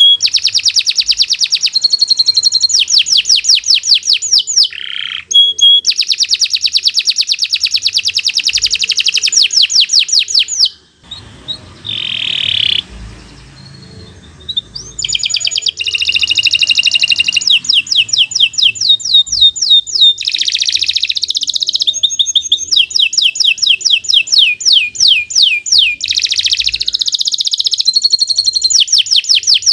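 Domestic canary singing long, loud phrases of rapid repeated trill notes, high-pitched and rolling. The song breaks off for a few seconds near the middle, then resumes.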